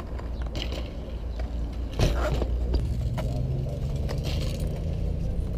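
Wheels rolling on concrete, a steady low rumble, with a sharp knock about two seconds in and a few lighter clicks.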